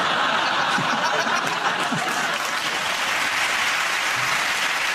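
Studio audience applauding steadily, with some laughter mixed in.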